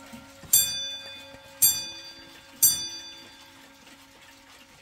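Junghans mantel clock striking three o'clock: three evenly spaced strokes about a second apart, each ringing out and fading.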